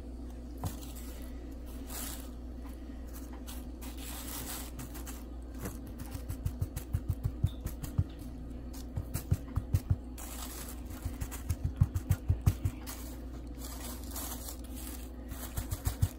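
A hand patting and pressing a fish fillet into dry fish-fry breading in a plastic bag: rustling and scraping of the plastic and crumbs, with runs of quick soft thumps from about six seconds in.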